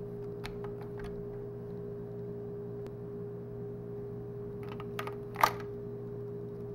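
Plastic Lego bricks clicking as a Lego Skorpion vz. 61 replica is handled, with one sharp, much louder click about five and a half seconds in as the Lego magazine is pushed into its well. A steady low hum runs underneath.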